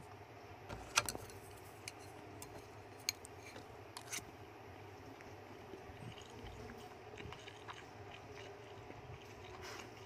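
Rat chewing on a piece of fruit: soft chewing and small sharp clicks and taps, several in the first four seconds, over a faint steady background hum.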